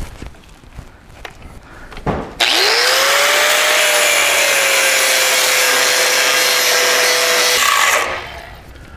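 Handheld cut-off tool with a thin abrasive wheel spinning up and cutting into a steel truck frame rail for a C-notch. The steady, loud grinding hiss starts suddenly about two and a half seconds in, over a motor whine that rises quickly and then settles. It runs for about five seconds, stops near the end, and is preceded by a few small knocks as the tool is set in place.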